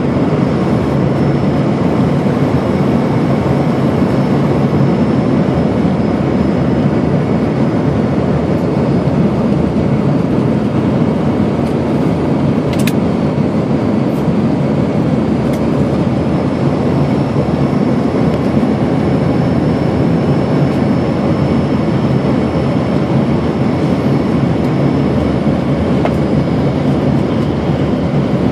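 Steady cabin noise of a jet airliner in flight: engine drone and air rushing past the fuselage, heaviest in the low range, with a faint thin high tone over it and one brief click about halfway through.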